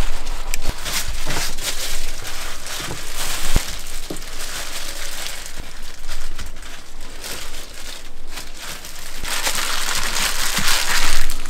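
Disposable plastic gloves crinkling as hands work cooked rice and spread it over a sheet of dried seaweed for gimbap, with a few light knocks; the crinkling grows louder near the end.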